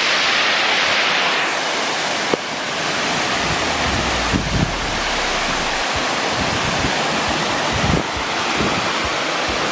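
Steady rushing of a waterfall, with wind rumbling on the microphone for a couple of seconds in the middle and a single sharp click about two seconds in.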